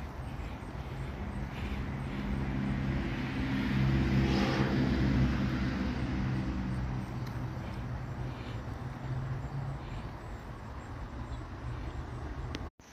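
A car driving past, its engine hum and tyre noise growing louder, loudest about four to five seconds in, then fading away.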